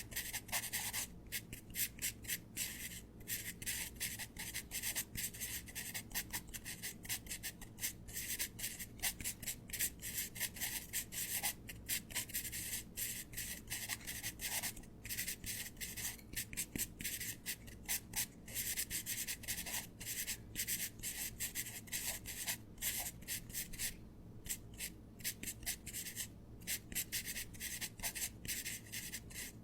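Paper being rubbed and rustled: an irregular scratchy hiss, broken by many brief pauses.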